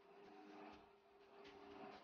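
Very faint bubbling of sugar syrup at the boil in a pot, with a few soft ticks or pops and a faint steady hum underneath.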